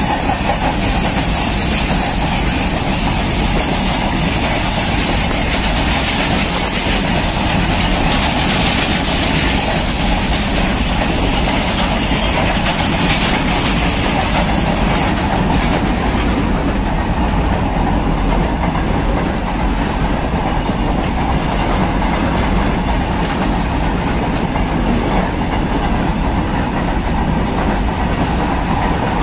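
Covered goods wagons of an Indian Railways BCNA freight rake rolling past close by, their wheels clattering steadily over the rail joints.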